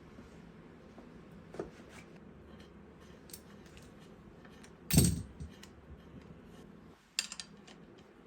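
Workshop handling noise: light metallic clicks and clinks of tools or parts being picked up and set down. There is one loud knock about five seconds in that rings briefly, and a short clatter near the end.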